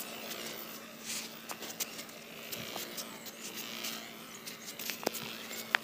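Small electric hobby motors spinning the model airplane's two propellers with a steady hum, amid scattered sharp clicks and crackles.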